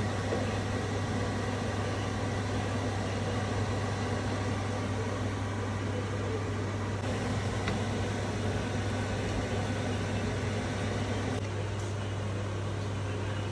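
A steady low mechanical hum with an even hiss over it, holding level without change.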